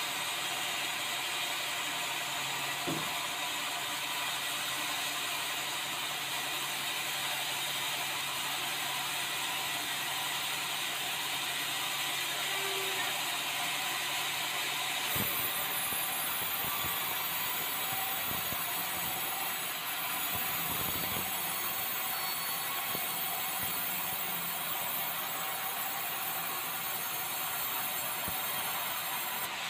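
Band sawmill machinery running steadily with a constant mechanical noise. Scattered knocks come from the log and carriage, one a few seconds in and a cluster after the midpoint.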